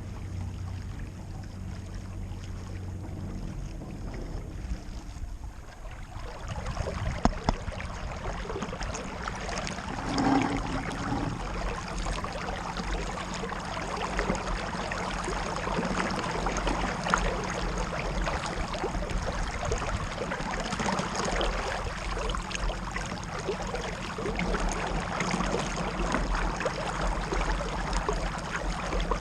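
Boat under way: a steady low motor hum under water rushing and splashing past the hull, growing louder about six seconds in.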